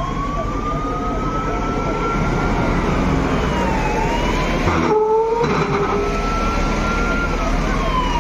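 Emergency siren wailing, its pitch sliding slowly down and then back up about every four to five seconds, with a second, faster warbling tone beneath it. A diesel engine runs underneath, fitting the JCB backhoe loader passing close by.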